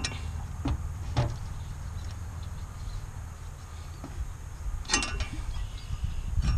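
Wind noise on the microphone throughout, with a few sharp knocks and a scrape of the tractor's steel radiator and fan shroud as they are worked loose by hand. The loudest knock and scrape come about five seconds in.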